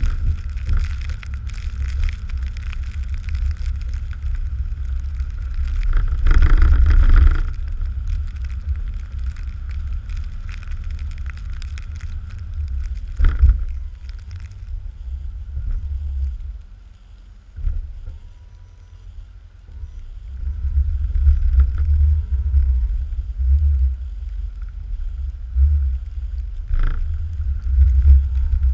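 Pickup plow truck running as it works the lot, heard as a steady low rumble mixed with wind on the microphone. There is a louder rush about six seconds in, a quieter stretch about two-thirds of the way through, and a sharp knock near the end.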